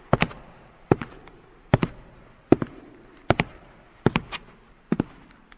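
Sharp cracking knocks in quick pairs and threes, a cluster about every 0.8 seconds, each with a short ringing tail.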